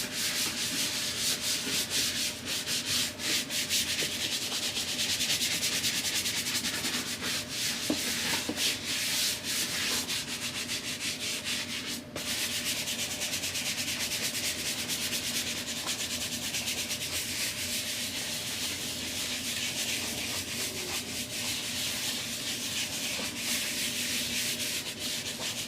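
Brush scrubbing a leather car seat with leather cleaner in fast, continuous back-and-forth strokes.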